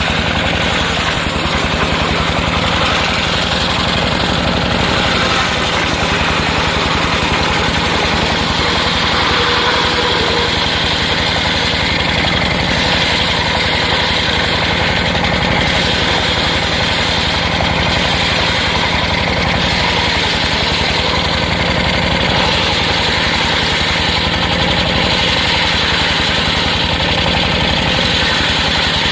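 Engine-driven circular sawmill running steadily and loudly, its engine drumming at an even beat under a broad whirring noise from the saw.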